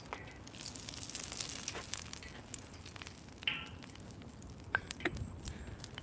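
Pizza deep-frying in a pot of hot oil: a soft sizzle with scattered small crackles.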